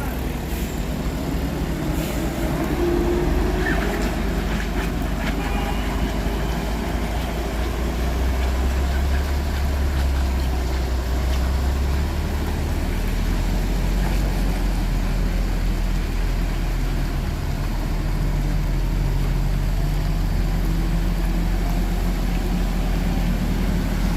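Heavy truck's diesel engine running with a loud, steady low drone, its note dropping about halfway through, over tyre hiss on a wet road.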